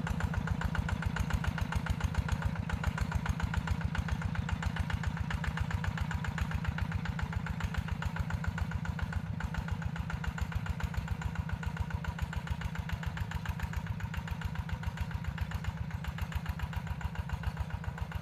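Yanmar TF120 single-cylinder diesel on a two-wheel walking tractor, running with a fast, even exhaust beat while it pulls a plow through hard soil, slowly fading as it moves away.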